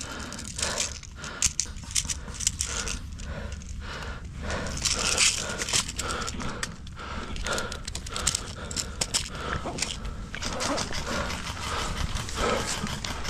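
A player's heavy breathing close to the microphone, over the rustle and crunch of dry leaf litter and gear as he moves, with scattered sharp clicks.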